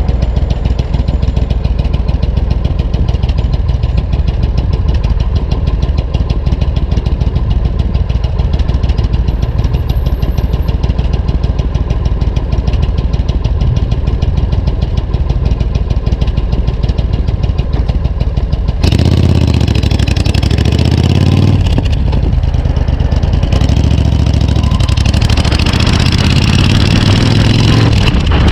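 Suzuki Intruder 1400's V-twin running with an even idle beat. About two-thirds of the way through the sound changes suddenly to the engine being revved, its pitch rising and falling, with more noise on top.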